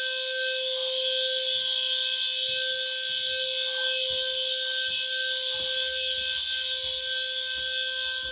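Several fire alarm signalling devices sounding together continuously: steady, unbroken electronic tones with a shrill, dense upper band. Soft low thuds sound scattered underneath.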